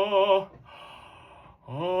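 A classical singer holds a sung note with vibrato that stops about half a second in. A breath is taken in, and a new sustained note starts near the end, part of a vocal exercise.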